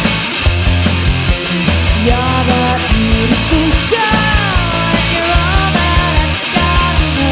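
Britpop band's demo recording playing: a full rock band with steady drums and bass, and a melody line that slides up and down coming in about two seconds in.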